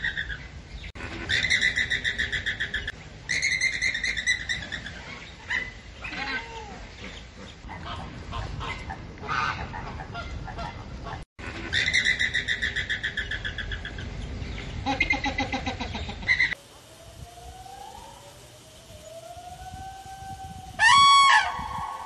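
Male common blackbird singing: phrases of rapid notes about two seconds long, repeated with pauses between. Near the end it gives way to thin gliding whistles and one loud short call about a second before the end.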